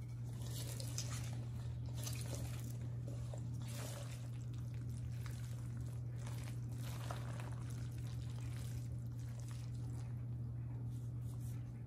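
Gloved hands mixing and squeezing red kimchi paste through julienned vegetables in a stainless steel bowl, in irregular wet strokes, over a steady low hum.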